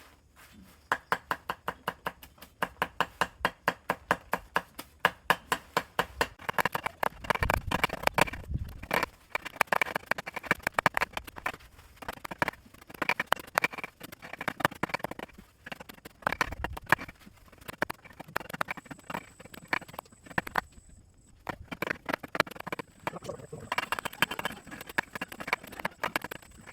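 Leaves being chopped by hand with a blade on a hard surface for pig feed: quick, even strokes about four or five a second, in runs with short pauses.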